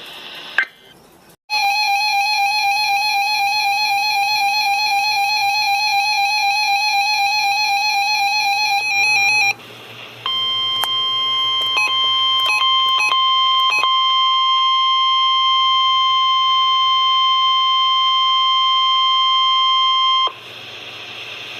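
A warbling electronic alert tone sounds for about eight seconds. After a brief break, the steady 1050 Hz NOAA Weather Radio warning alarm tone is held for about ten seconds, with a few clicks near its start. This is the tone that switches weather alert receivers on, sent here as a test.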